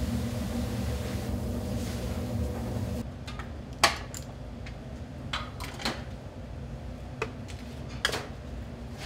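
A steady low kitchen hum that stops abruptly about three seconds in, followed by a few sharp metal clicks and clinks as a spring-trigger scoop releases a mound of rice onto a plate, the loudest click coming about a second after the hum stops.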